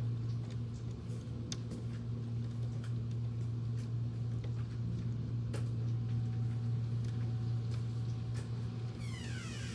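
Steady electric fan hum under rain, with irregular scattered ticks of drops striking. A brief falling swish comes near the end.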